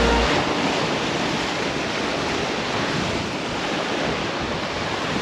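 Steady wash of ocean surf, a continuous rushing noise without breaks.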